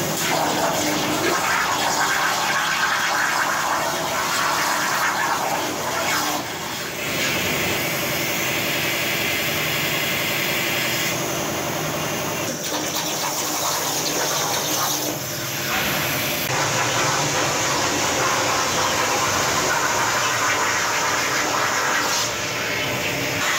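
CNC plasma torch cutting steel plate: a loud, steady hiss that shifts abruptly in tone several times.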